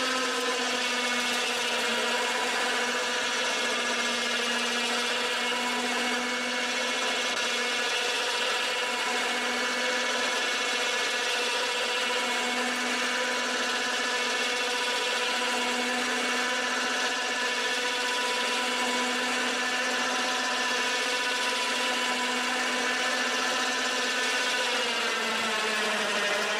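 Warn 2000 Series electric winch running steadily, its motor and gear drive whining as it reels in cable to pull a golf cart toward the truck. The pitch sags slightly near the end.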